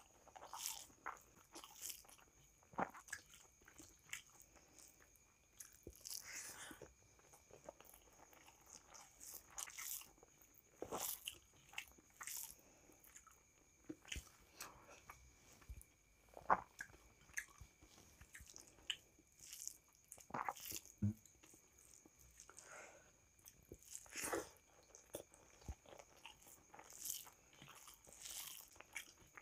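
A person eating rice and dal by hand close to the microphone: chewing with irregular wet smacks and clicks.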